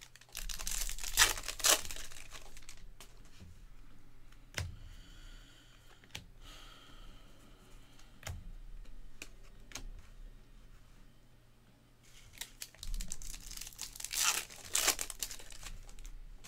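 Baseball card pack wrappers being torn open and crinkled, in two loud spells: one just after the start and one about thirteen seconds in. In between, faint rustling and light clicks as the cards are handled.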